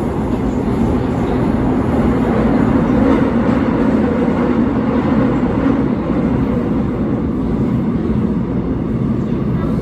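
Subway train running, heard from inside the car: a steady rumble of wheels and motors with a low hum, swelling a little about three seconds in.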